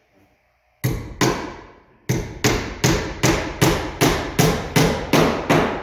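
Hammer nailing a plywood gusset to a wooden frame: two blows, a short pause, then a steady run of about ten blows at roughly three a second, each ringing briefly.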